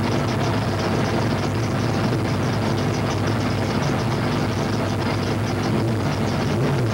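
Race truck's engine idling steadily, heard from inside the cab.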